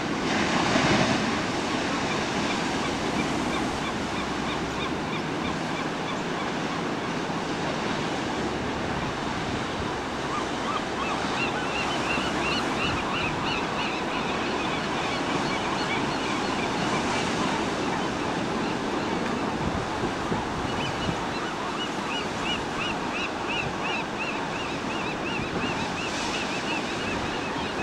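Ocean surf breaking and washing steadily around large coastal rocks, heaviest in the first couple of seconds. Over it, gulls give runs of short, quickly repeated high calls, twice in the second half.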